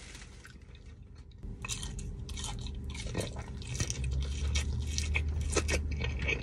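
A person chewing a sauce-covered chicken tender close to the microphone: wet chewing and lip smacks, starting about a second and a half in.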